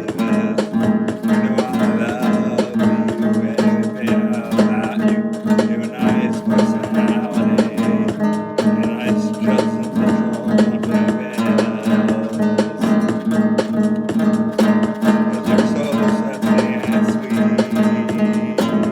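Acoustic guitar music, steadily plucked and strummed with a quick, even rhythm.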